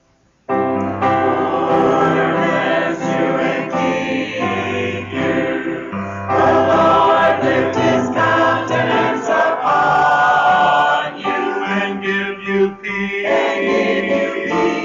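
A church choir singing a hymn, which starts abruptly about half a second in after a moment of near silence.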